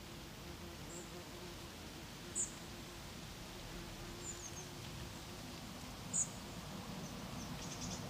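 A small bird giving short, very high chirps several times, two of them clearly louder than the rest, over a faint low background hum.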